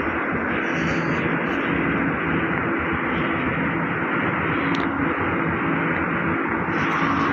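Steady noisy din of a working container terminal, with a low hum from engines and machinery running under it.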